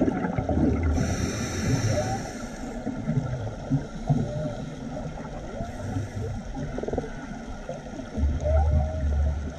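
Scuba breathing heard underwater: a regulator hissing on the inhale about a second in and again near the middle, with exhaled bubbles rumbling low in between, loudest near the end. Faint short rising-and-falling calls sound here and there through it.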